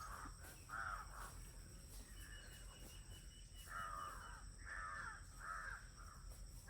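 A crow cawing repeatedly, about half a dozen short, faint calls.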